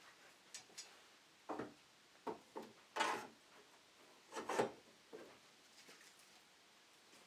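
A series of short wooden knocks and rubbing scrapes, irregularly spaced. The loudest are a longer scrape about three seconds in and a cluster of knocks about four and a half seconds in.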